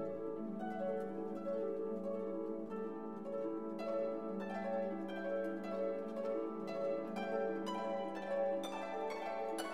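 Instrumental music: held tones with plucked notes entering about four seconds in and growing busier.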